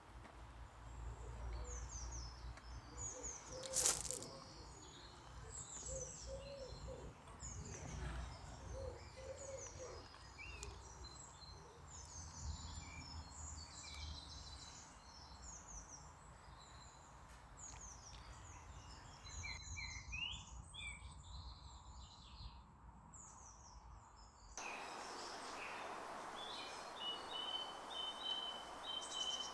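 Several small birds chirping and singing, faint over a low steady rumble, with one sharp click about four seconds in.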